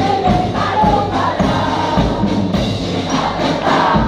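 A brass marching band with sousaphones and trumpets playing, with a big crowd of students singing along over a steady low beat.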